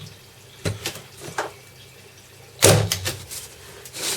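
Parkside PET 25 C2 electric stapler firing once on its lowest setting: a single loud clack about two and a half seconds in, between a few light clicks of the tool being handled and set against the wood.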